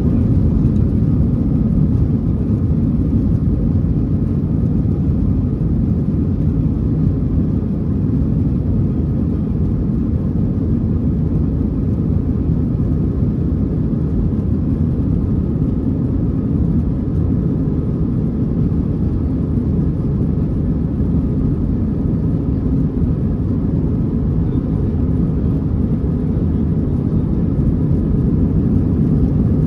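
Steady rumble of the CFM56 turbofan engines and airflow heard inside the cabin of an Airbus A321-211, with a faint steady whine above it.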